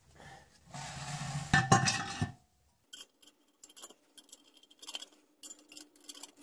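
Steel cover of a homemade pressure tank being fitted onto its bolted flange, a scraping clatter with a couple of sharp knocks, followed by scattered light metallic clinks of nuts being picked up and run onto the flange bolts.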